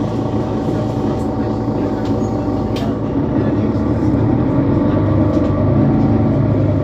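Mercedes-Benz Citaro C2 city bus diesel engine running while driving, getting louder about halfway through as it pulls harder.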